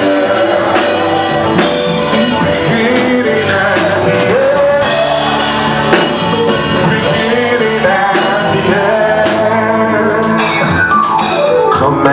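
Live gospel praise music: a band with drums playing sustained chords under singing voices, with a falling slide in pitch near the end.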